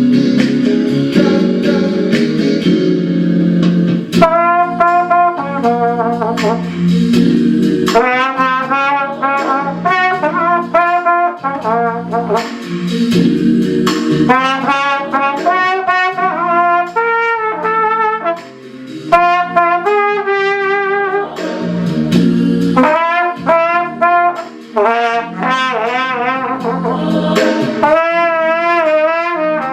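Keyboard chords, joined about four seconds in by a flugelhorn playing a slow melody in long held notes with vibrato, phrase by phrase with short breaks between.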